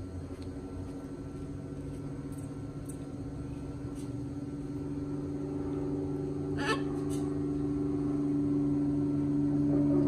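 A steady motor drone with a constant pitch, slowly growing louder, with a few faint ticks and one short sharp sound about two-thirds of the way through.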